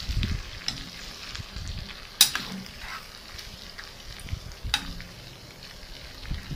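Steel spoon stirring pork, onions and green chillies in a metal pan over the heat: the food shuffles and sizzles lightly, and the spoon knocks sharply against the pan twice, loudest about two seconds in.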